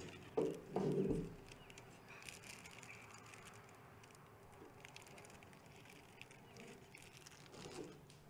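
Soft crinkling and rustling of plastic cookie wrappers being handled and opened, with scattered faint clicks. A brief, louder low sound comes about a second in.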